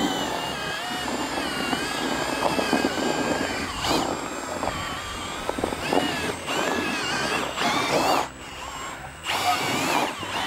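Cordless drill with a paddle mixer stirring thick boilie dough in a plastic bucket, its motor whine wavering as it labours under the heavy load. It slows off briefly about eight seconds in, then runs again.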